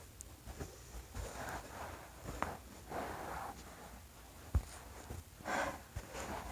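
Joints cracking during a self-adjustment: a sharp pop about two and a half seconds in and a louder, deeper pop a couple of seconds later, with soft rustling and breath sounds between.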